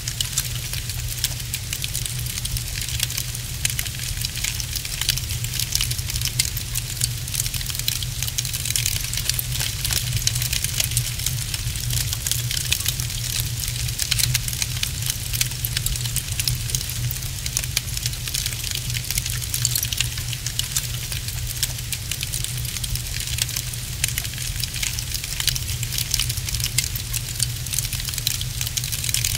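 Wood fire crackling in a fireplace: many small, quick pops over a steady low rumble.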